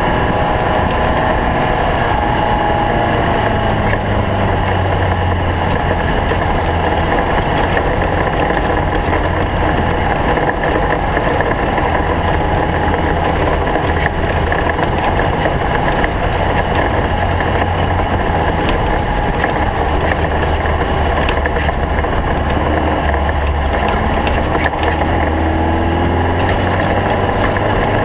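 Stock bug racing buggy's engine running hard and steadily at speed, with its pitch wavering a little as the speed changes.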